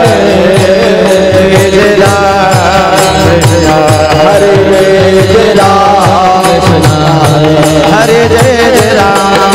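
Marathi Varkari kirtan music: a voice singing a sliding devotional melody without clear words, over a steady beat of a drum and the rhythmic clashing of small brass hand cymbals (taal).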